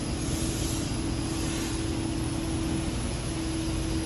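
Steady mechanical drone with a constant hum.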